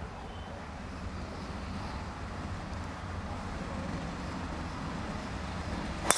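Steady low outdoor rumble, then near the end one sharp crack of a driver striking a golf ball off the tee.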